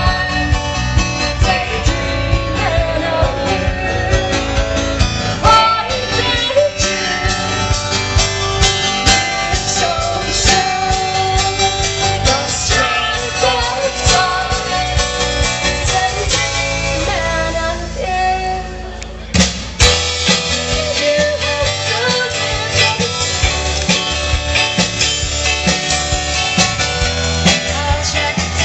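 Music with a singing voice and guitar, with a short break in the sound about two-thirds of the way through.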